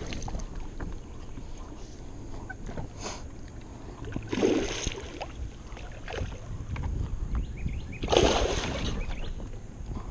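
A big hooked bass thrashing and splashing at the surface beside a kayak, with two heavy bursts of splashing about four and eight seconds in and lighter water sloshing between them.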